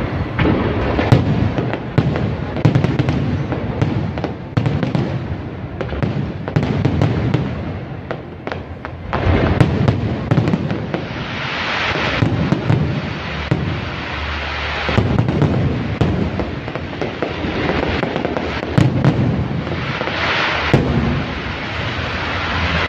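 Fireworks display: many shells bursting in quick succession, with sharp bangs following one another throughout.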